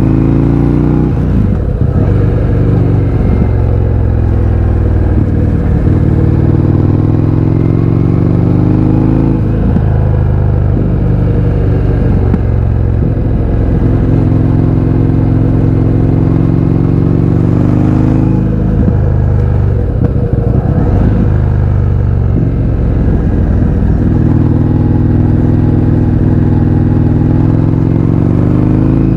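Indian FTR 1200 V-twin engine through an Akrapovič exhaust with the baffles removed, accelerating hard: the pitch climbs through each gear and drops at each upshift, several times over.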